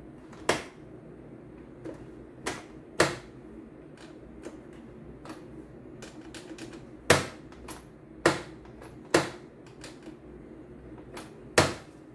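CNY E960 computerized embroidery machine's mechanism clacking at irregular intervals, about seven loud knocks and some fainter ticks, over a steady low hum as it tries to run. The machine is stiff and sticking ("seret"), a fault the owner reported.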